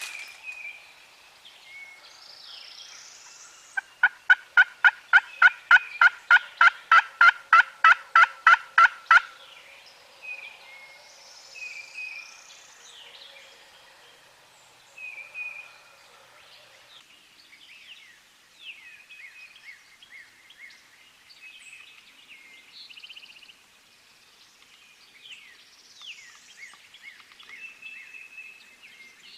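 A loud run of about twenty turkey yelps, evenly spaced at about four a second and lasting some five seconds, then songbirds chirping quietly.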